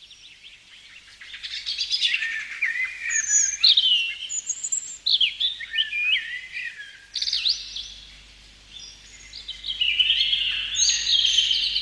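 Songbirds singing: a busy run of quick whistled and chirping notes, starting about a second in, easing off for a moment around two-thirds of the way through, then picking up again.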